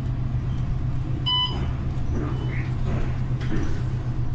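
Inside a New Flyer XDE60 diesel-hybrid articulated bus under way: a steady low drone, with one short electronic beep about a second in.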